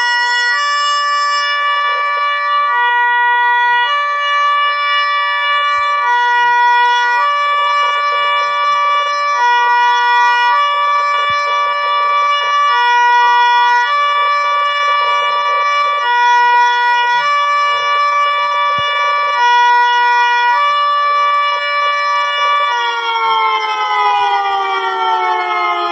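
A loud two-tone siren sound serving as a cartoon siren cat's voice. It switches between a higher and a lower pitch about once a second, then near the end glides steadily down in pitch.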